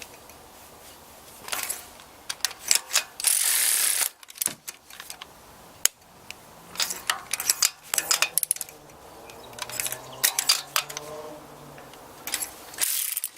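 Hand tools clicking and clanking on the engine, with a socket ratchet working as spark plugs are snugged down. About three seconds in there is a short, loud hiss.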